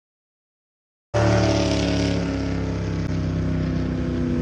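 Total silence for about a second, then an engine running steadily cuts in abruptly, with a low hum whose pitch drifts slightly.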